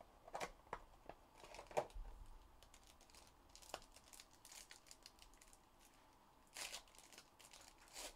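Faint crinkling of a foil trading-card pack wrapper being pulled open, with a few sharp ticks and clicks from handling the card box. The longest burst of crinkling comes a little before the end.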